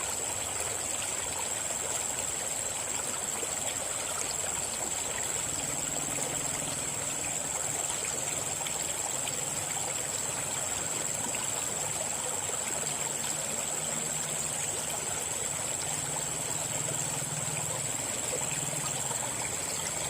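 River water flowing: a steady, unbroken rush.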